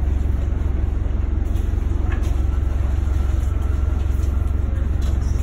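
A boat's engine running steadily with a deep, even rumble, with a few faint knocks over it.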